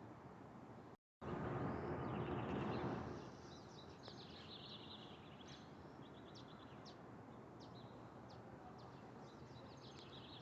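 Faint, irregular bird chirps. About a second in there is a brief rush of noise lasting a couple of seconds.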